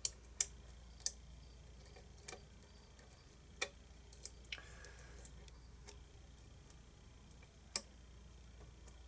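A lock pick working the pins of the "Diomedes" pin-tumbler challenge lock, giving a handful of sharp, irregular clicks as pins are lifted and set. The loudest clicks come right at the start and about eight seconds in.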